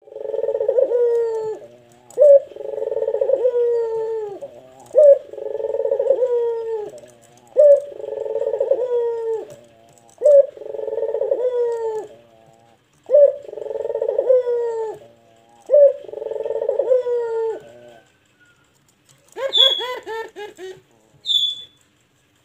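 A caged puter (Barbary dove) cooing in a deep, bass-heavy voice. It gives seven regular phrases, each a short clipped note followed by a long rolling coo that drops in pitch at the end. After a short pause near the end come a quick run of short notes and a few sharp, high chirps.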